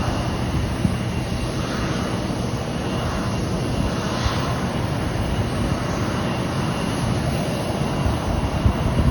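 Embraer 175 airliner's twin turbofan engines running steadily at low thrust as it turns for take-off, a steady rushing noise with a faint high whine.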